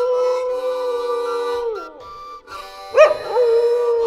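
A dog howling along with a harmonica. One long held howl slides down and breaks off about halfway through. A sharp new howl starts about three seconds in and is the loudest sound, with harmonica notes held underneath.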